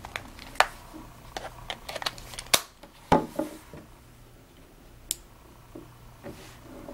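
A string of sharp clicks and taps from a Hytera DMR handheld radio being handled and its keys pressed. They are densest in the first three seconds, the loudest about three seconds in, with one more near five seconds, over a faint steady low hum.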